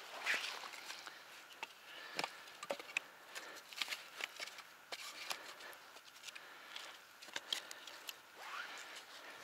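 Dry branches and twigs cracking and rustling as they are laid down and trodden on, an irregular scatter of sharp snaps.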